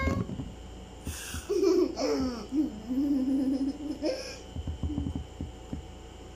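A young child laughing, with drawn-out voiced laughter lasting a couple of seconds, then a few soft clicks near the end.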